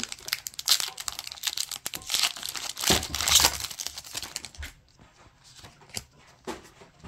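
Foil booster-pack wrapper crinkling and being torn open, a dense crackle that is loudest about three seconds in and dies away to a few faint clicks after about four and a half seconds.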